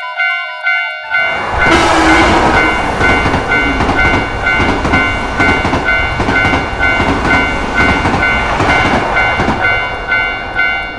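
Railroad crossing warning bell ringing, about two rings a second, as a train passes from about a second in with a rhythmic clatter of wheels.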